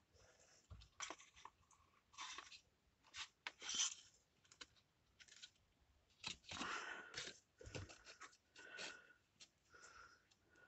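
Paper being handled: irregular short rustles and crinkles with a few sharp taps.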